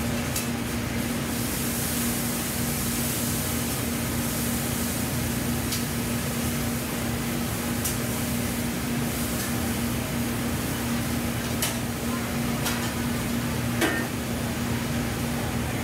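Steady whir of a commercial kitchen's ventilation fans with a constant low hum. A few light ticks come through it, the most noticeable near the end.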